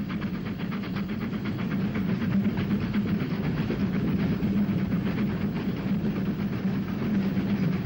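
Steam locomotive running fast, with a quick, even beat over a steady low rumble.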